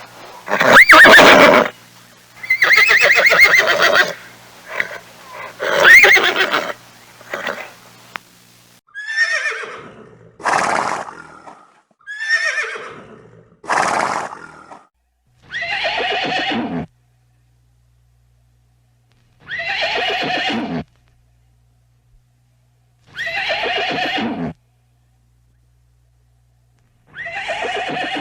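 Horses neighing, a series of separate calls. Several loud ones come in the first eight seconds, then four whinnies falling in pitch. After that come four near-identical calls of about a second and a half each, spaced about four seconds apart with silence between them.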